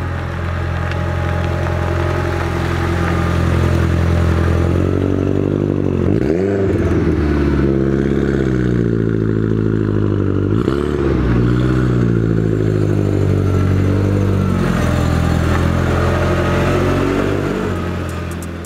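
Seat Leon Cupra's engine running steadily, revved up and back down twice, about six and eleven seconds in, then fading out near the end.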